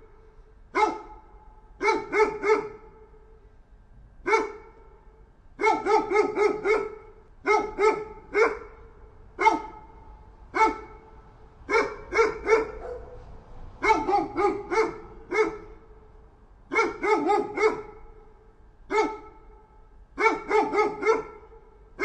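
A dog barking over and over in quick runs of one to about five barks, with pauses of about a second between runs.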